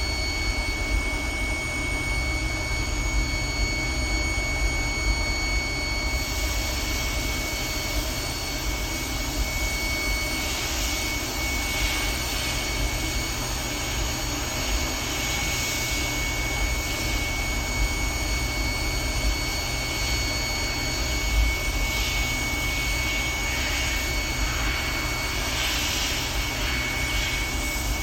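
2010 GMC truck engine running steadily: a low rumble with a steady high-pitched whine over it. The engine carries a P0300 random-misfire code, put down to fouling.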